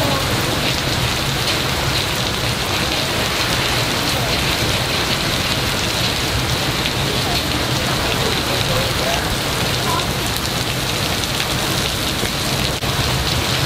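Heavy rain pouring down in a thunderstorm, a steady dense hiss of rain beating on surfaces, heard through an open window.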